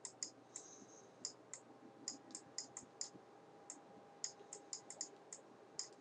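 Quiet, sharp clicks of a computer pointing device, irregular and about three to four a second, made while an equation is being hand-written on screen.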